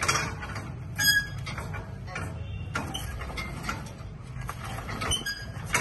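Hand rope-start attempt on an HMT tractor's diesel engine: a rope wound on the front pulley is tugged, giving a few short knocks and scrapes, but the engine does not fire.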